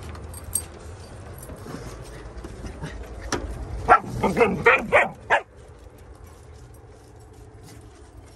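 A dog barks five or six times in quick succession about four seconds in, over the light ticking of dogs' claws on a wooden deck.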